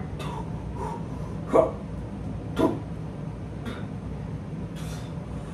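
A man's short, sharp grunts as he forces out the last reps of a heavy dumbbell bench press, about one a second, the two loudest near the middle. A steady low hum runs underneath.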